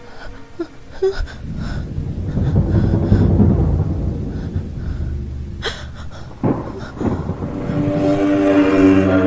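Suspense film score: a low rumbling drone that swells, with two sharp hits a little past the middle, then a sustained droning chord building near the end.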